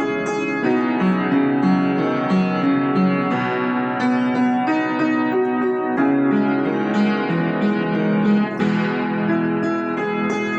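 Piano music: a slow melody with sustained chords, notes changing every half second or so.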